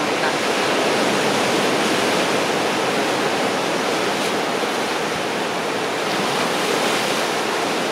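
Ocean surf: a steady rush of waves breaking on the beach.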